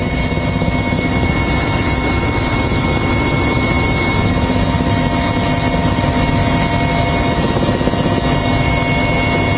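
Helicopter in flight heard from inside its cabin: a steady engine whine over the fast, even beat of the rotor.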